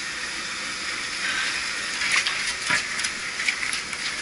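Steady hiss, with a few short scrapes and knocks from a heavy 15-ton Trane refrigeration compressor being slid by hand across a concrete floor, mostly in the second half.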